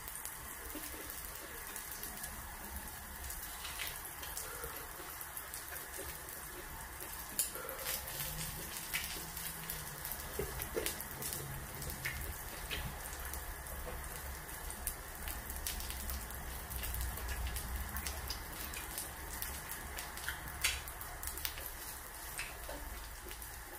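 Pork and mushrooms sizzling on an electric griddle: a steady spattering hiss with frequent small pops and crackles.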